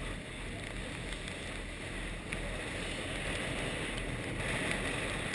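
Steady rush of wind and water around a catamaran under sail in a squall, a little louder from about two seconds in, with a few faint ticks.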